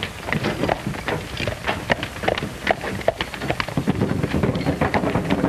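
Horses' hooves clopping at a walk on a dirt street, an uneven run of hoofbeats several a second, over the hiss and crackle of an old optical film soundtrack.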